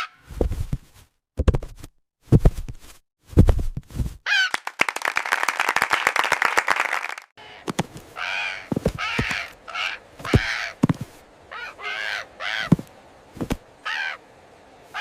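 A bird's harsh, crow-like caws, repeated several times in the second half, with low thuds between them. A run of fast rattling comes about four seconds in.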